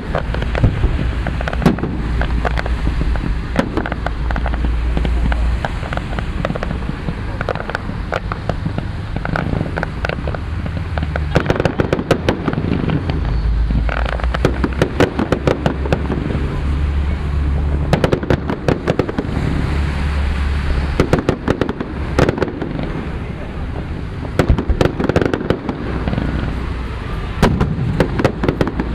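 Fireworks display: a dense, irregular run of sharp bangs and crackles.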